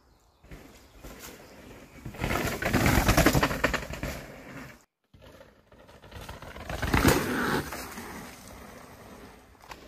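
Downhill mountain bike rolling fast past on a dirt forest trail, its tyres crunching and skidding over dirt and leaves. It swells up twice as it passes, with a brief drop to silence between.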